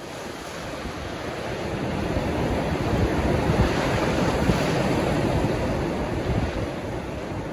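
Sea surf breaking and washing up on a sandy beach, a steady rush of waves that builds in the middle and eases off near the end.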